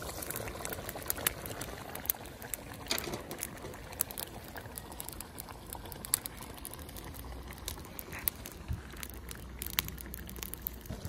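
Rice cooking at a full boil in jaggery water in a large metal pot over a wood fire: steady bubbling with many small scattered pops.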